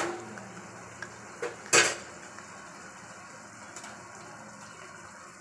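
Kitchen utensils knocking against a steel cooking pot: a sharp clack at the start, two light knocks about a second in, and a louder clatter just under two seconds in. After that only a faint steady hiss.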